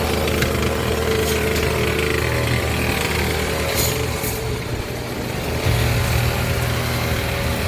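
Chamberlain garage door opener running steadily, its motor drive moving the door after a code is entered on the wall keypad.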